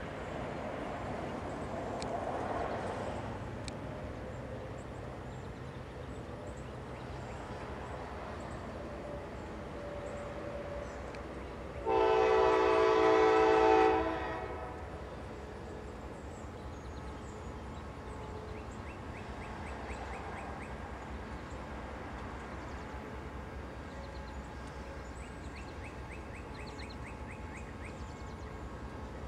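A locomotive air horn sounds one blast of about two seconds, a chord of several tones, near the middle, over a low steady rumble of trains.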